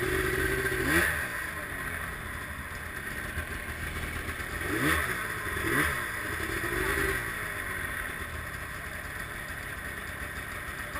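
Snowmobile engine idling and being blipped, the revs rising and dropping back about a second in and a few more times around five to seven seconds in, then settling to a steady idle.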